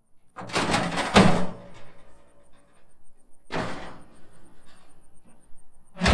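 Welded-wire cattle panel clattering and clanking against a pickup truck bed as it is thrown up and flexed into an arch, with the sharpest clank just after a second in. Another clatter comes about three and a half seconds in and a heavier thunk at the very end.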